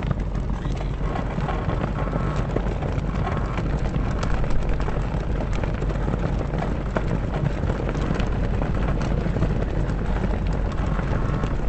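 Sails flapping in the wind with a ship's mast creaking, a continuous irregular fluttering and crackling of cloth over a steady low rumble.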